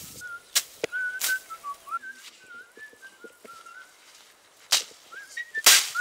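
A person whistling a wandering, gliding tune, over several sharp swishing chops of a machete cutting into bush, the loudest one near the end.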